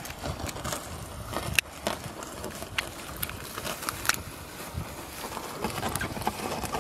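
Scattered small clicks and rustles of hands handling a freshly caught pickerel while it is bled at the gills, over a low rumbling background.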